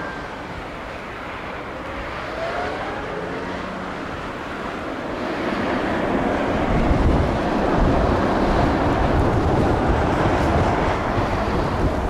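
Jet engines of a ZIPAIR Boeing 787 airliner rumbling as it rolls out on the runway after touchdown. The roar grows much louder and deeper about halfway through.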